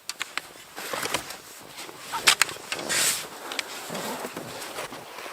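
Irregular crunching and scraping in snow, with a few sharp crunches a little after two seconds in and again around three seconds.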